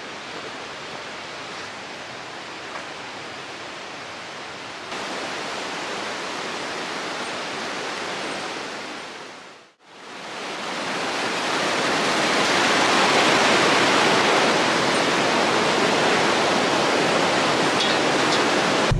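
Steady rush of a rocky river's white-water rapids. It is fainter in the first half, briefly cuts out about halfway through, then comes back louder and stays loud.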